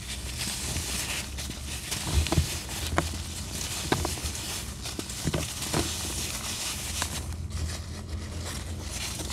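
Dry molded black sand crumbling in gloved hands, a steady gritty crunch of grains falling onto loose sand. Sharp cracks come as chunks snap apart, several between about two and six seconds in.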